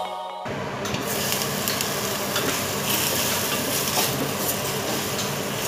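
Diced carrots and sweet potato boiling in a little water in a stainless steel pot, stirred with a wooden spatula.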